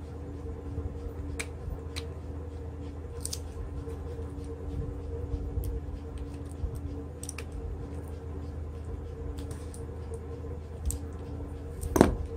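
Scattered small clicks and taps of a plastic power bank case and a precision screwdriver being handled during reassembly, over a steady low hum. A louder clatter of clicks comes near the end.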